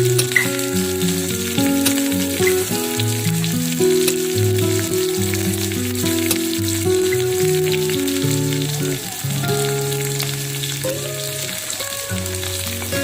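Food frying in hot oil: a steady sizzle with fine crackles, under background instrumental music of held notes changing in a slow melody.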